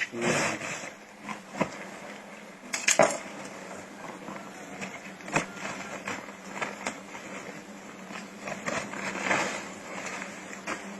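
Irregular knocks and clattering, loudest just at the start and about three seconds in.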